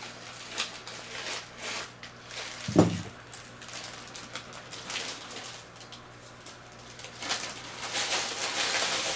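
Plastic poly mailer rustling and crinkling as it is handled, with a single thump about three seconds in. The rustling grows denser and louder near the end.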